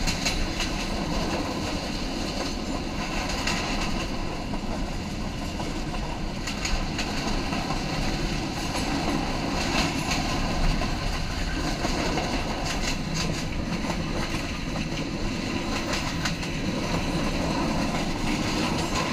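Passenger train running along the line, heard from on board: a steady rumble with the wheels clacking over rail joints now and then.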